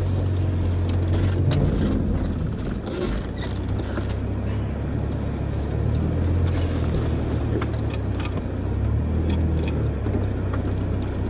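Land Rover four-wheel-drive engine idling steadily, with a few scattered clicks and knocks.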